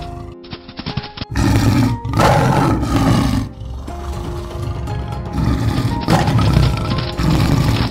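Big-cat roar sound effects, a tiger's roar, over background music: one long roar about a second in, and another near the end.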